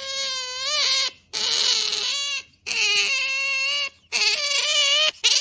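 An otter calling with high, whining cries: four drawn-out calls of about a second each, wavering in pitch, the second rougher and harsher, then a short one at the end.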